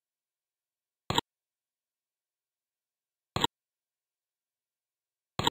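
Three short clicks from the phonics software's interface sound effects, about two seconds apart, each a quick double click, with dead silence in between.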